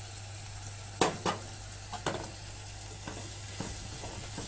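Beef chunks and onion searing in a pot, a steady sizzle, while a red spatula stirs the spices through. A few sharp knocks on the pot punctuate it; the loudest two come about a second in, with fainter ones after.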